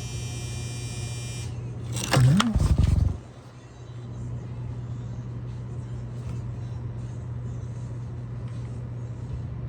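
Frigidaire dishwasher wash motor powered but failing to spin, giving a steady low hum, with a loud brief low thump about two seconds in. The motor is getting 120 volts yet only bumps and warms up: the wash motor is bad.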